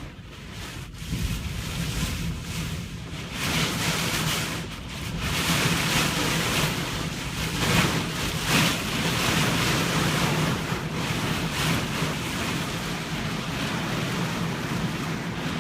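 Loud rushing wind and surf-like noise, swelling and easing in gusts, with wind buffeting the microphone and a steady low hum underneath.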